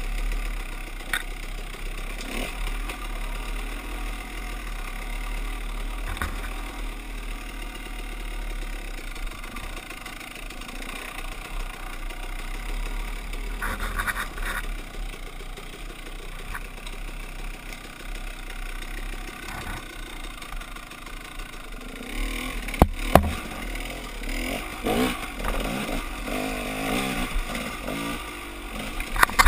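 Dirt bike engine running and revving as the bike is ridden over rough single-track, with clatter from the bike over the ground. Sharp knocks stand out twice a little past two-thirds of the way through and again near the end.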